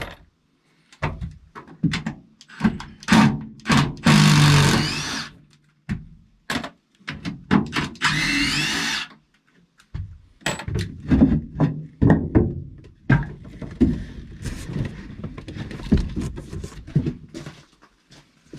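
A power drill-driver backing screws out of a wooden speaker enclosure, in short bursts and two longer runs with a rising whine, about four and eight seconds in, between many knocks and clunks of the wood being worked loose.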